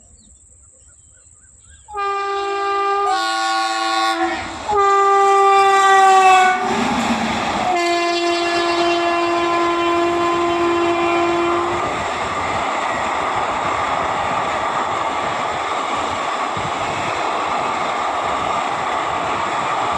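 WAG-9HC electric locomotive's air horn sounding in several blasts, each a chord of notes, starting about two seconds in and loudest around the middle. A last, longer steady note fades out, leaving the steady rumble of the train's wheels on the rails as it passes.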